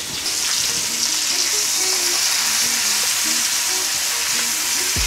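Top sirloin steaks searing in hot grapeseed oil in a nonstick frying pan, a steady, busy sizzle that grows a little stronger about a quarter second in. Faint background music of short notes sits underneath.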